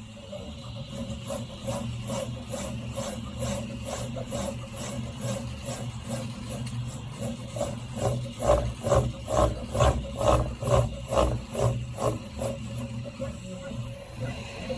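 Prusa i3 MK3S 3D printer making very fast back-and-forth moves, its stepper motors whirring in repeated strokes about two to three a second over a steady hum, with a rattle on each stroke that grows loudest in the middle. The rattle shows only at very high speed.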